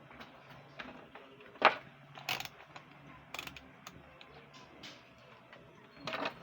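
A few sharp clicks and knocks of small objects being handled, the loudest about a second and a half in, over a faint steady hum.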